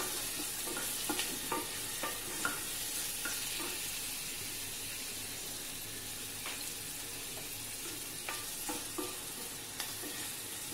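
Chopped onions sizzling in hot oil in a small pot, a steady faint hiss, with light taps and scrapes of a wooden spatula as they are stirred, mostly in the first few seconds and again near the end.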